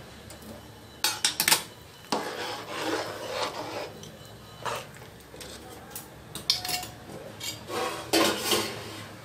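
A metal utensil clinking and scraping against an aluminium cooking pot, in several bouts. The sharpest clatters come about a second in and again near the end.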